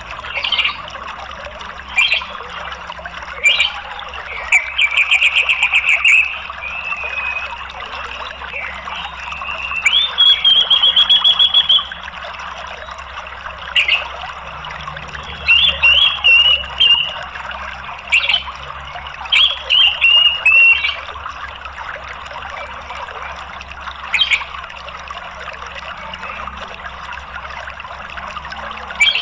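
Orange-headed thrush calling over the steady rush of running water: short sharp calls scattered throughout, with two longer rapid trills, one a few seconds in and one about ten seconds in.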